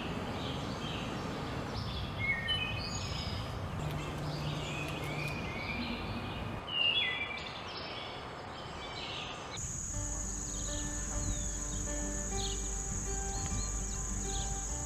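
Small songbirds chirping and twittering over a steady outdoor hiss. About ten seconds in, soft instrumental music comes in along with a steady high buzz, and a few chirps carry on over it.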